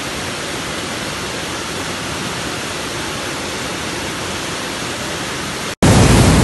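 Steady rushing noise of a street-wide torrent of floodwater under heavy rain. Near the end it drops out for an instant and comes back louder and deeper.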